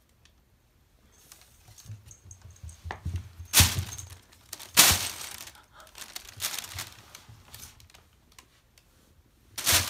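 Clear plastic 45-litre garbage bag crinkling in irregular sharp bursts as a cat paws and noses at it. The loudest crackles come about three and a half and five seconds in, with another near the end.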